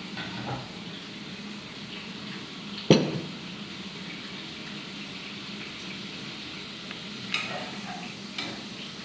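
Potatoes shallow-frying in melted butter in a pot, a steady sizzle. A sharp knock about three seconds in, and a few light clinks of a metal spoon against the pot near the end.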